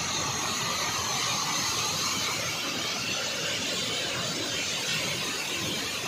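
Waterfall rushing steadily down over rocks.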